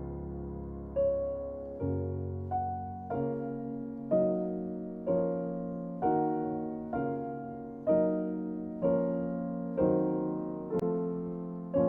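Background music: a slow, gentle piano piece, notes and chords struck about once a second and left to ring out.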